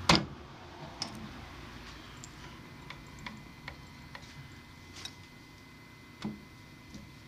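Scattered light clicks and taps from hand work at a lathe, with one sharper click right at the start.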